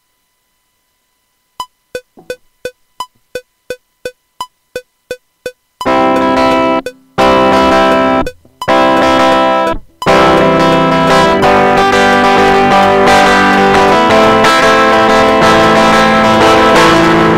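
Metronome count-in clicking at a fast, even tempo, about three ticks a second, with a higher accented click on each downbeat. Then an electric guitar strums loud sustained chords, stopping briefly three times before playing on without a break.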